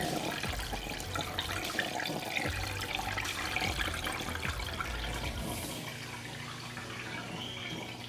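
Drain water from an RCA 2.0 portable washing machine running out of its drain hose into a sink and down the sink drain.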